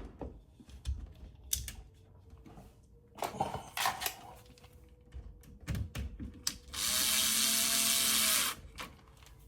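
Clicks and knocks of parts being handled, then an electric screwdriver runs steadily for about a second and a half, driving in a lock screw.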